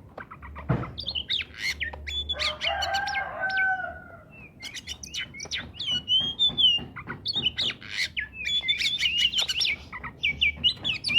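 Oriental magpie-robin in full song: a fast, varied run of whistles and chirps, with a rooster crowing once about two seconds in.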